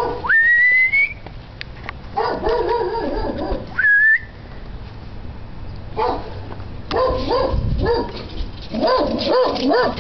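A dog barking in several bursts, louder and more frequent in the second half as it comes closer, with two short rising whistles in the first half.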